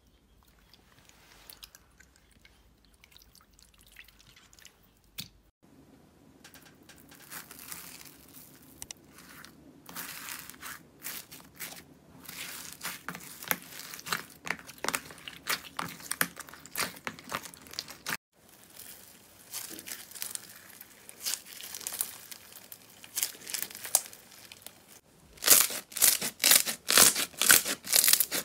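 Slime squeezed and kneaded by hand: faint squishing at first, then steady crackling and popping as slime full of foam beads is worked. Near the end come a rapid run of loud crunches as a lumpy, beaded slime is squeezed.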